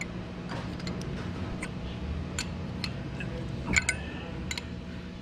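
Light metallic ticks and clinks of a steel combination wrench being handled against a nut welded onto a broken exhaust manifold bolt on a cast-iron cylinder head, with a quick cluster of clinks about three-quarters of the way through. A steady low hum runs underneath.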